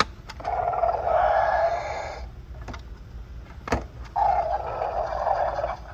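Mattel Roarin' Atrociraptor Ghost mask playing two of its electronic roaring and hissing dinosaur sound effects through its small speaker, each about two seconds long, with a few short clicks between them.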